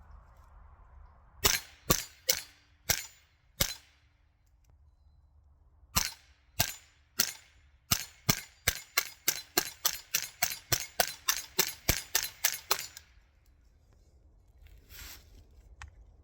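AR-15 fitted with a .22 LR conversion kit firing semi-automatic: five shots, a pause of about two seconds, then a long quick string of about twenty shots at roughly three a second that stops about 13 seconds in.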